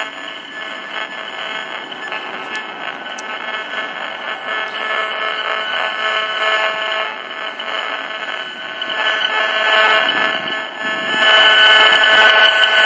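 Handheld RF electrosmog meter's speaker sounding a steady electronic alarm tone with several pitches at once, louder from about eleven seconds in as its reading climbs near cell antennas.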